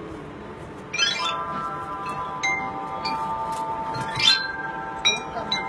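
Tibetan singing bowls struck several times, starting about a second in, their clear metallic tones overlapping and ringing on between strikes.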